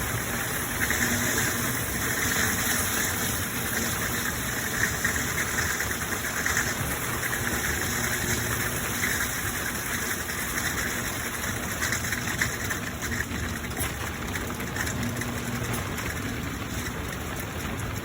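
Midea 13 kg washing machine running through its wash cycle: a steady mechanical hum and churning that swells and eases every couple of seconds.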